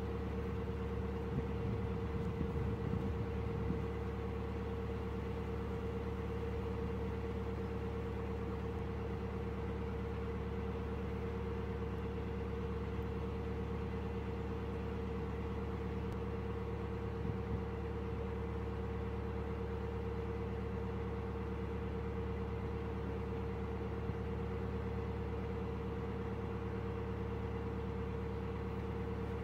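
A narrowboat's engine running steadily while under way at cruising pace, a constant hum with a strong steady tone.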